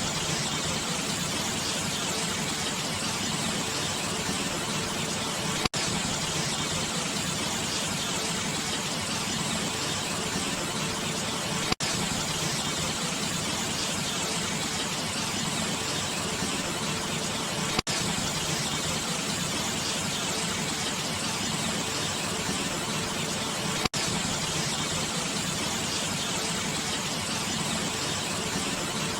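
Waterfall, a steady rush of falling water that cuts out for an instant about every six seconds.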